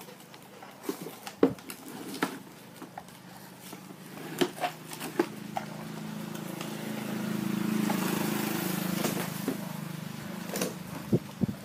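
Light clicks and knocks of plastic toys being handled. About halfway through, a small electric toy motor starts whirring steadily for several seconds, swelling and then fading away, with more clicks near the end.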